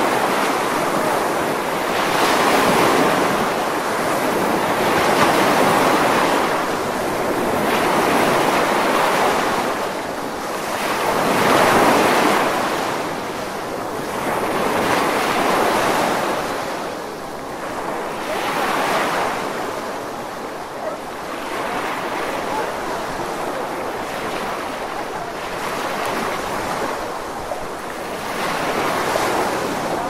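Sea surf breaking and washing up a sandy beach, a wave rising and falling away every few seconds in a steady rhythm.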